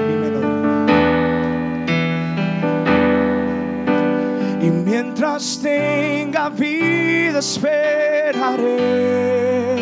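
Worship music: a keyboard plays sustained chords, and about halfway in a man starts singing over it, holding notes with a wavering vibrato.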